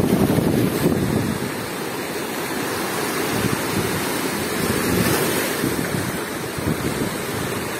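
Storm waves surging in and washing over a flat rock shelf, a continuous hiss of breaking foam and rushing water that swells at the start and again about five seconds in. Wind buffets the microphone.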